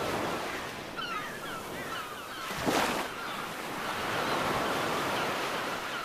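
Sea waves breaking and washing over a rocky, pebbly shore, with a louder surge of surf about three seconds in.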